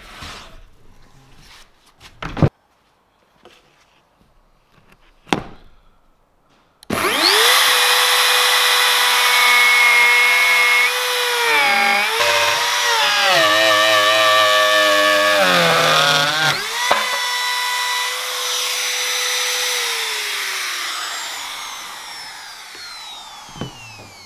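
Two knocks, then a compact trim router starts up and runs with a high, steady whine. Its pitch dips and wavers under load as it cuts along the edge of a plywood panel, then steadies. Near the end it is switched off and winds down with a falling pitch.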